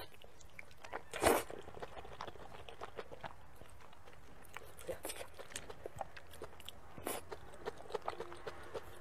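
A person eating sticky wide potato-starch noodles: a short slurp as a noodle strip is sucked in, about a second in, then chewing with small wet mouth clicks and a couple of shorter slurps later on.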